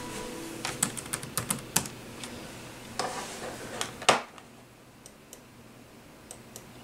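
Laptop keyboard keys being typed in a quick run of clicks, then a second short run, ending in one harder keystroke about four seconds in, like Enter being pressed to log in; a few faint ticks follow.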